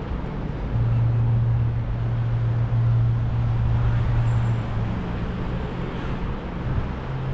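City street traffic noise with a nearby motor vehicle engine running as a steady low hum, which gets louder about a second in and eases off a little past the middle.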